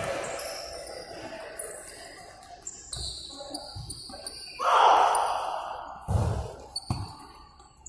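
Futsal ball being kicked and bouncing on an indoor court, several dull thumps, with shoes squeaking on the hard floor. A loud noisy burst about halfway through is the loudest sound.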